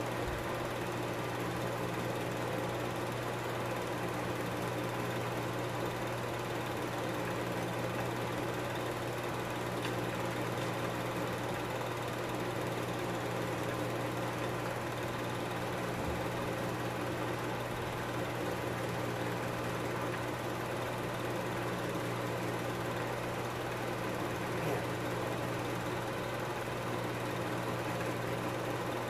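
Film projector running: a steady mechanical whir over a low hum.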